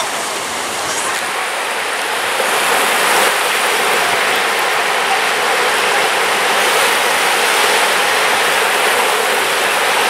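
Steady hiss and wash of small waves breaking onto a sandy beach, blended with the general noise of a crowded beach.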